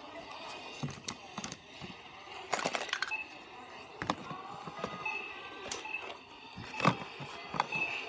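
Grocery packages being dropped and set into a plastic Walmart shopping basket: a series of knocks and rattles, some in quick clusters, the loudest about seven seconds in.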